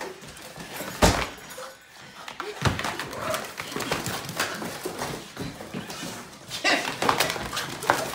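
A dog wrestling with a flattened cardboard box, the cardboard scraping and rustling on a wooden floor. Sharp knocks break in: the loudest about a second in, another near the middle, and several close together near the end.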